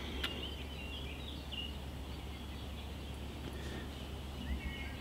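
Birds chirping faintly over a steady low outdoor rumble, with a light click just after the start.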